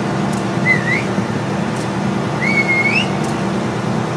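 A person whistles twice, each a short whistle that rises in pitch, over a steady low rumble.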